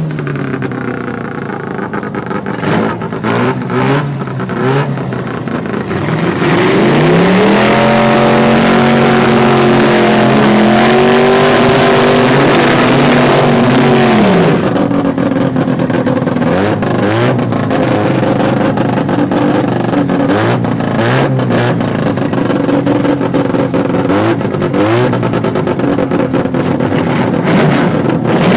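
A car engine revving: quieter at first, then held high with a slowly rising pitch for about seven seconds before dropping off about fourteen seconds in, after which it runs lower with short throttle blips.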